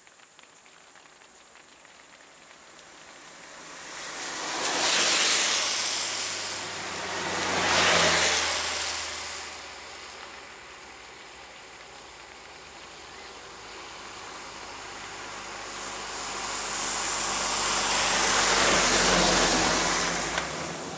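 Vehicles driving past on a wet road: three swells of tyre hiss with some engine noise, rising and fading at about five, eight and eighteen seconds in.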